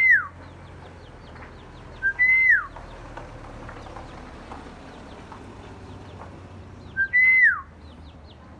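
Myna giving loud whistled calls three times, each a short note followed by a longer whistle that holds and then slides steeply down in pitch, with faint chirps in the background.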